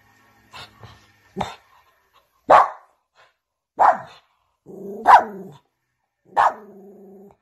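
A dog barking: five sharp single barks spaced evenly, about one every 1.2 seconds, with a low held growl rumbling between the last barks.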